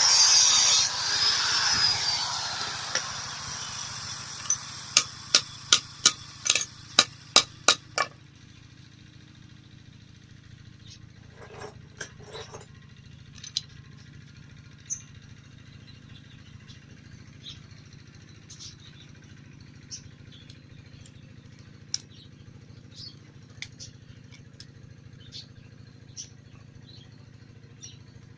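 A power tool winding down and fading out over several seconds, then about ten sharp evenly spaced taps, roughly two a second, followed by a faint steady hum with occasional light clicks of metalwork.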